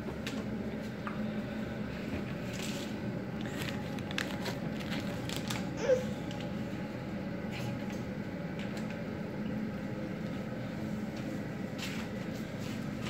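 Scattered light clicks and taps of a toddler handling a pot and spoon, over a steady low hum. One brief sharp squeak about six seconds in.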